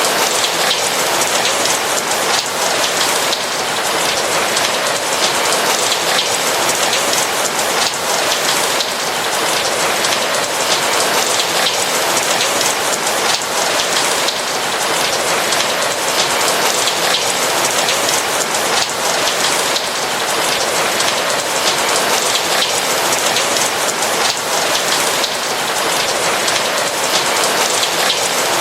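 Steady rain falling, a dense even hiss of many small drops ticking, with no break or change.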